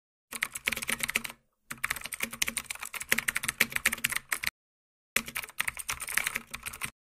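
Keyboard typing sound effect: three runs of rapid key clicks, about a second, three seconds and two seconds long, broken by short spells of dead silence.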